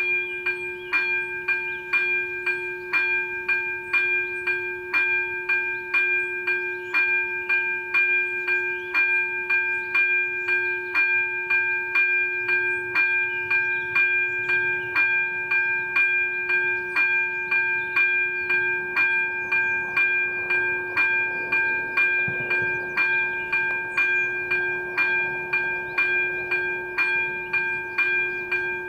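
Level-crossing warning bell of an AŽD 97 crossing ringing about twice a second in an even, unbroken rhythm, each stroke leaving a ringing tone: the crossing is closed, warning of an approaching train.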